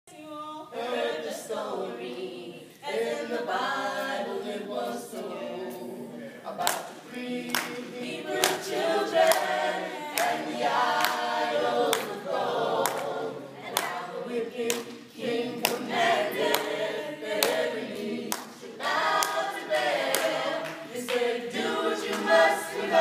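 A small mixed group of men's and women's voices singing a Southern gospel song in harmony, with no instruments heard. From about six seconds in, steady handclaps keep the beat.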